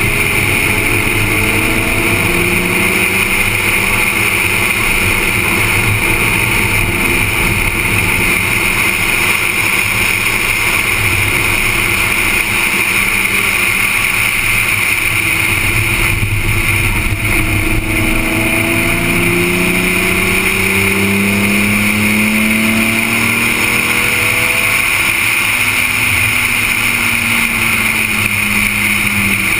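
BMW's engine pulling hard around a racetrack, its pitch rising and falling through the gears, under a steady, loud rush of wind on an exterior-mounted camera.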